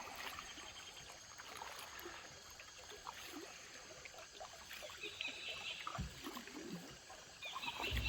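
Faint jungle ambience: soft scattered ticks and rustles, with a faint high insect buzz coming in about five seconds in and again near the end, and a couple of low thumps.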